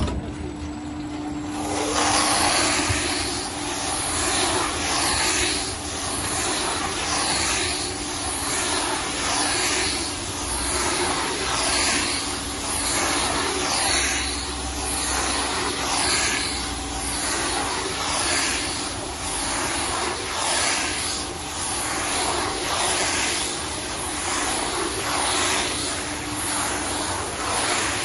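Silage round baler-wrapper running, wrapping a maize silage bale in film: a steady machine hum and hiss that swells and fades every second or two as the mechanism turns.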